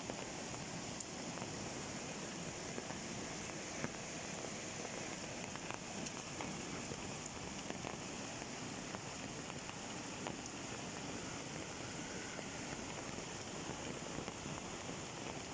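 Steady patter of rain and dripping water after a rain shower, with scattered single drops ticking.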